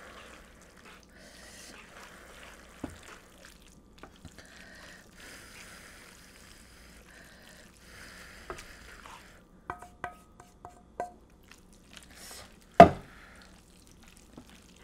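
Wooden spatula stirring spaghetti in an electric pot while an egg and cheese mixture is poured in from a metal bowl: soft wet stirring and scraping, a quick run of light ringing clinks about two-thirds of the way through, and one loud knock near the end.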